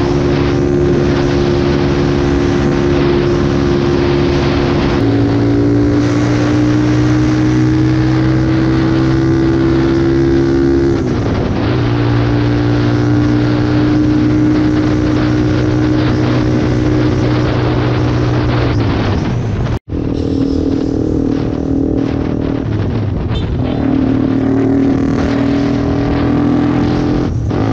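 Motorcycle engine held at high revs at road speed, with wind rushing past, while drafting close behind a pickup truck. Its pitch is steady apart from a step down about five seconds in and a brief dip near eleven seconds; the sound cuts out for an instant near twenty seconds.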